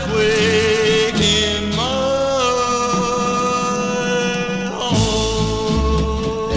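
A 1960s doo-wop record playing: voices holding long notes in harmony over a band with a steady bass beat.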